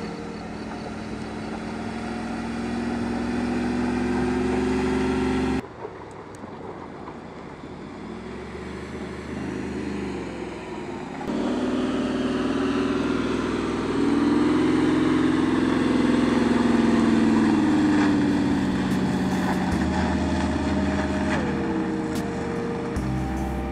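Mercedes-Benz G-Class engine working under load on steep off-road climbs, its pitch rising and falling as it revs. The sound is cut together from several shots and changes abruptly twice.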